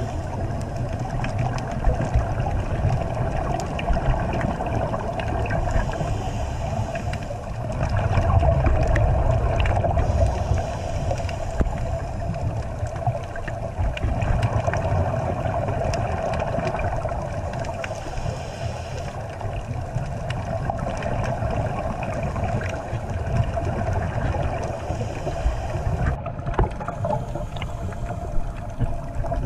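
Muffled underwater noise picked up through an action camera's waterproof housing: a steady low rumble with a constant hum and scattered faint clicks, swelling for a couple of seconds partway through.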